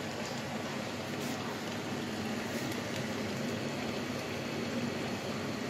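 A pot of canned beans in tomato sauce simmering on the hob, bubbling steadily.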